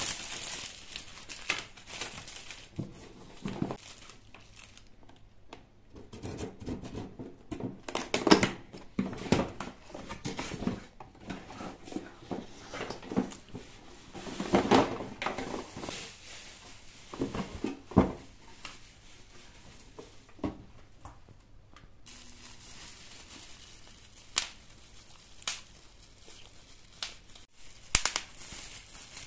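Packaging being unwrapped by hand: a clear plastic bag, a cardboard box and bubble wrap rustling and crinkling in irregular bursts, with scattered sharp crackles.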